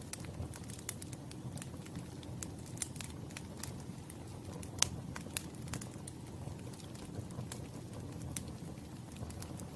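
Wood campfire burning with a steady low rumble of flame and frequent irregular crackles and pops, one sharper pop about halfway through.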